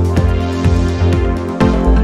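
Background music with a steady beat, about two beats a second.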